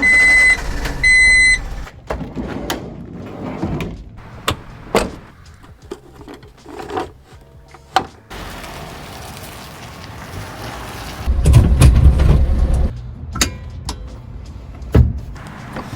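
A string of Honda Acty kei van sounds: an electronic beep sounding twice at the start, then a series of clicks and knocks from doors and fittings. A louder low rumble follows at about 11 to 13 seconds, and a sharp knock comes near the end.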